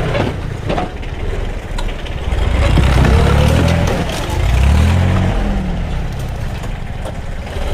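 Old truck engine running, its revs swelling up twice and falling back.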